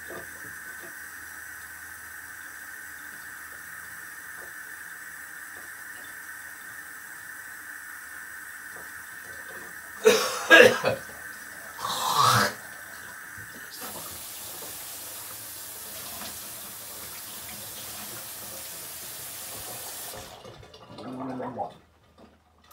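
Kitchen tap running into a stainless-steel sink, first a thin steady stream, then turned up to a fuller hiss a little past halfway and shut off suddenly near the end. Two short louder sounds come a little before halfway.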